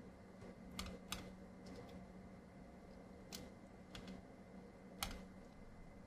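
About five short, sharp clicks of a pen stylus tapping on a writing tablet, spaced irregularly over a faint steady electrical hum.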